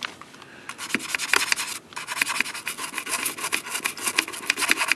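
Toothbrush bristles scrubbing rapidly back and forth along the metal edge of a MacBook Pro's trackpad opening, working off stubborn, sticky residue. The scratchy strokes start just under a second in and run on with a brief pause near two seconds.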